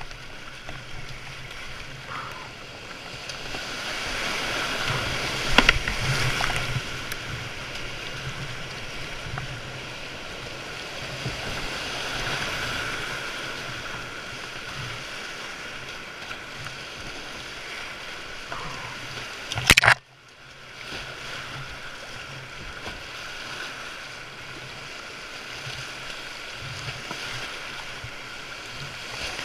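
Rushing river rapids and paddle splashes around a whitewater kayak. There are two sharp loud hits, one about six seconds in and a louder one near twenty seconds, after which the sound drops out briefly.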